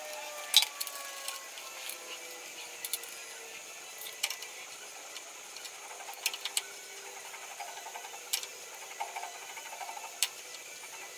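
Scattered sharp clicks and taps at irregular intervals over a faint steady hiss, with a faint tone gliding slowly downward in the first few seconds.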